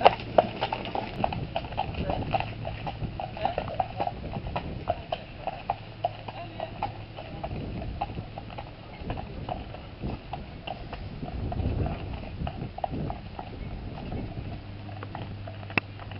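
Horse's hooves clip-clopping on a gravel lane as a horse-drawn carriage trots past, the hoofbeats loud at first and fading as it moves away.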